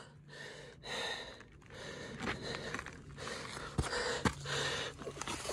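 A hiker breathing hard while climbing a steep trail, a heavy breath about every second. A few footsteps scuff and crunch on sandy gravel in the second half.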